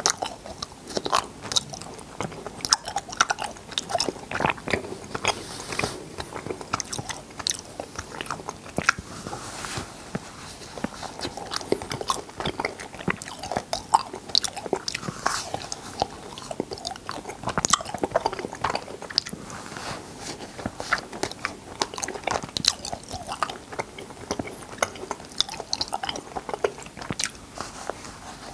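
Close-miked mouth sounds of cotton candy being eaten: many short, irregular wet clicks and lip smacks as the floss melts in the mouth.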